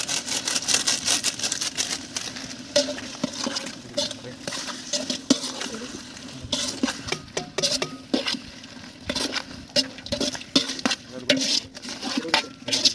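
Metal ladle stirring mushrooms and masala in a large aluminium cooking pot, with irregular scrapes and clinks of the ladle against the pot's sides.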